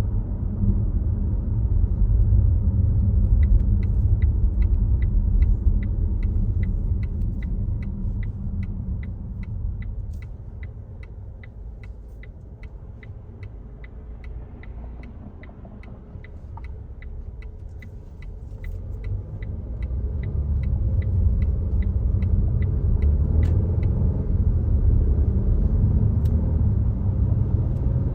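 Low road and tyre rumble of a Volvo XC60 driving, with the turn-signal indicator ticking evenly about twice a second from a few seconds in until late on. The rumble drops in the middle as the car slows, then builds again.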